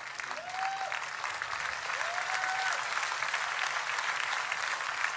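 Studio audience applauding, the clapping swelling about a second in, with a couple of brief calls from the crowd early on.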